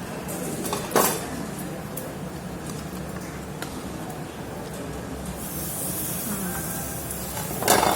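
Korean barbecue restaurant table noise: a steady hiss, stronger from a little past the middle, as meat sizzles on the tabletop grill, with two sharp clinks of tableware, about a second in and near the end, over faint background chatter.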